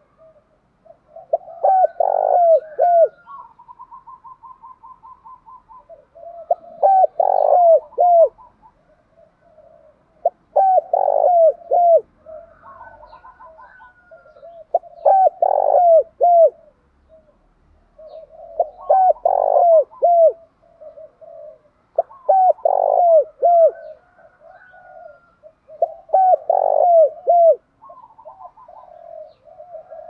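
Spotted dove cooing its song over and over, one short phrase of several cooing notes about every four seconds. Between some phrases there is a quick run of higher, rapid short notes.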